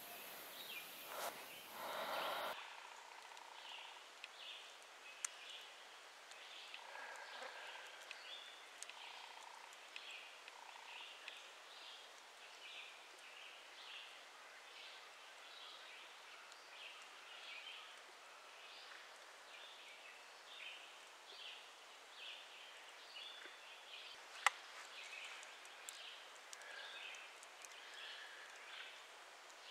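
Faint woodland ambience with small birds chirping repeatedly in short, irregular calls. It opens with a couple of seconds of louder low noise that cuts off suddenly, and there is one sharp click a few seconds before the end.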